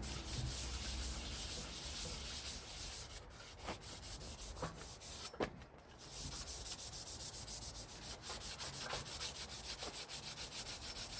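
Rapid back-and-forth scrubbing by hand, cleaning old sticky residue off a part, about five strokes a second. It eases off for a few seconds near the middle, where a few light knocks sound, then picks up again at a steady pace.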